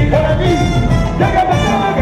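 Live Latin band music played loud on stage, with trumpet and a steady bass beat.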